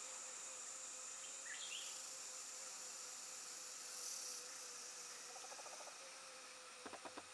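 Steady, faint high-pitched chirring of crickets and other insects. A few brief higher chirps come about a second and a half in, and a few soft clicks come near the end.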